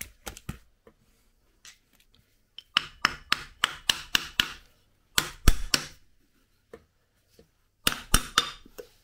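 Rapid sharp metallic knocks and clicks in three short bursts as the left-side engine cover of a Kawasaki Zephyr 550 is worked loose from the crankcase, its gasket stuck.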